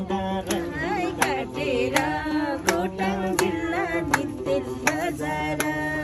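People singing a song together, with hand claps keeping an even beat of about one clap every 0.7 seconds.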